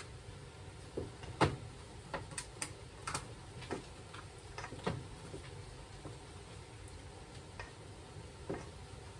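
Irregular light clicks and knocks of kitchen utensils and dishes being handled, about ten in all, the loudest about one and a half seconds in.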